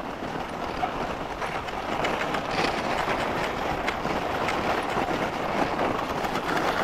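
Skis gliding and scraping over fresh snow while towed: a steady hiss with faint clicks now and then.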